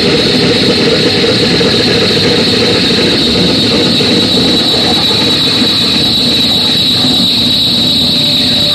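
Harsh noise from electronics and effects pedals: a loud, dense, unbroken wall of distorted noise with a steady high whine on top.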